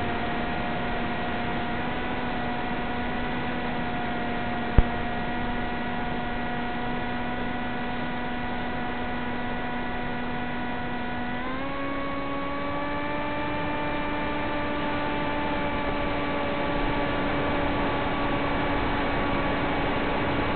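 Electric motor and propeller of an FPV plane running at cruise, a steady pitched tone over a constant hiss. About halfway through, the pitch steps up as the throttle is raised. A single sharp click comes about five seconds in.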